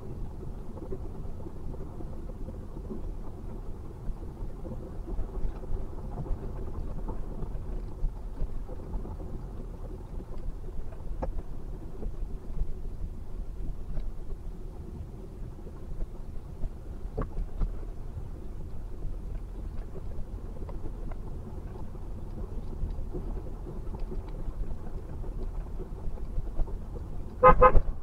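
Low, steady rumble of road and engine noise inside a Toyota Vellfire's cabin as it creeps along in slow, stop-and-go traffic. A vehicle horn gives one short honk near the end.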